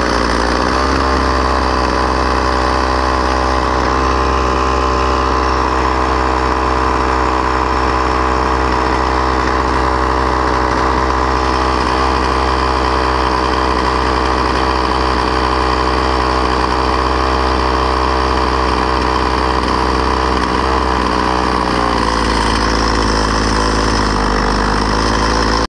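Small two-stroke engine of a Poulan string trimmer idling steadily while its carburetor screws are adjusted. Late on, the idle speed drops slightly and settles at a new, steady pitch.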